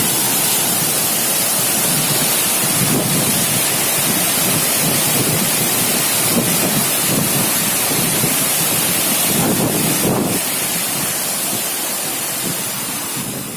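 Waterfall in heavy flow: a loud, steady rush of falling water that eases slightly near the end.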